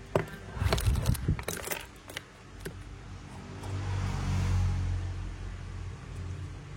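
A few sharp clicks and knocks of small hard objects being handled, then a low engine rumble that swells and fades around the middle, like a vehicle going past.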